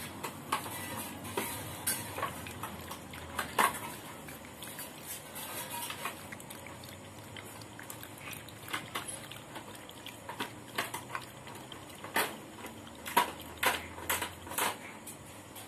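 A dog lapping milk from a steel cooking pot: an irregular run of wet laps and sharp clicks, with clinks against the metal pot.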